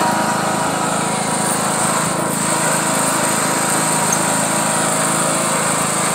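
John Deere riding lawn mower's engine running steadily while the mower drives along at speed.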